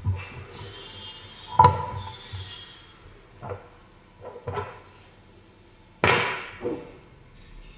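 Parts of a hand-crank meat grinder being handled on a wooden table: a series of separate knocks and clatters, the sharpest about a second and a half in and another strong one about six seconds in.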